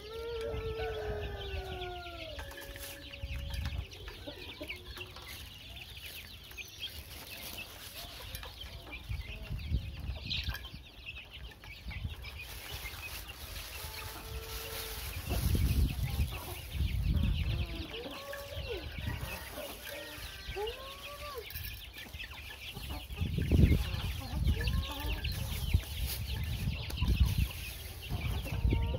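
Young chickens feeding in a flock, giving scattered short chirping calls over a dense high ticking. A few loud low rumbles come around the middle and again later on.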